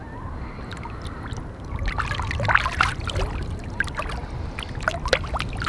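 Water splashing and churning as a released king salmon kicks free of the hands holding it and swims off, loudest about two and a half seconds in, then trailing off into drips and small splashes. A low steady rumble runs underneath.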